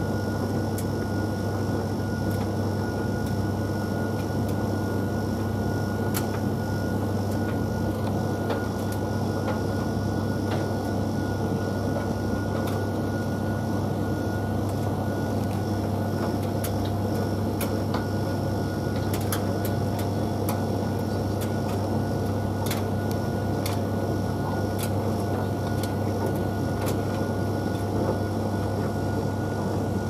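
Tumble dryer running mid-cycle, its drum turning with a steady low hum and whine. Scattered light clicks sound through it, more often in the second half, as the tumbling load knocks against the drum.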